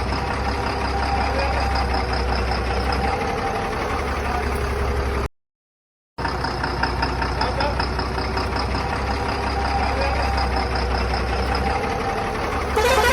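A steady vehicle engine running, with busy background noise. It cuts out completely for about a second midway, then starts again. A horn begins sounding just at the end.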